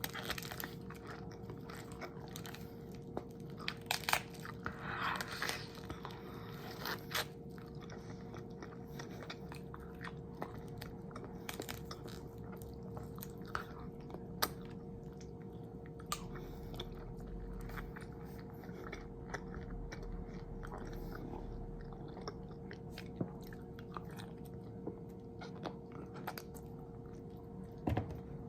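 Close-miked eating: crunchy bites and chewing with irregular sharp crunches, the loudest around four to seven seconds in, over a faint steady hum.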